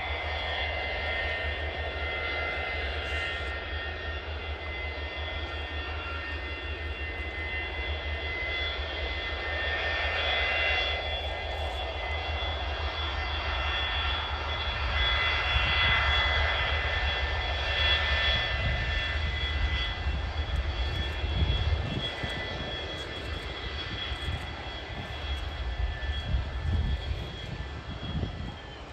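Boeing 727's three Pratt & Whitney JT8D jet engines whining steadily over a low rumble as the tri-jet moves along the runway. The sound grows louder toward the middle and the whine drops slightly in pitch near the end as it passes.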